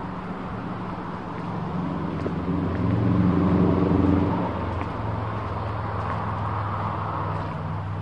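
A motor vehicle engine hum that swells to its loudest about four seconds in, then eases and carries on steadily.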